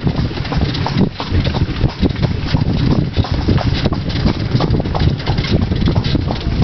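Horse-drawn carriage rolling along a paved lane: a continuous rumble and rattle from the wheels and frame, with the horse's hooves clopping irregularly through it.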